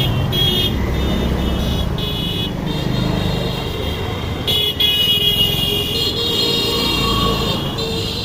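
Small motorcycles riding past with their engines running, under repeated horn honks, short ones at first and then held longer through the second half.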